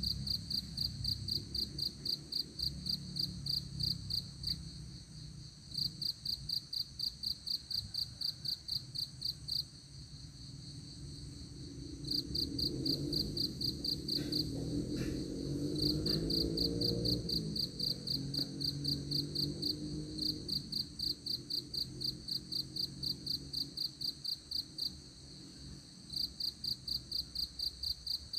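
Crickets chirping in rhythmic pulsed trills, about seven pulses a second, in runs of a few seconds broken by short pauses, over a low steady hum that grows louder in the middle.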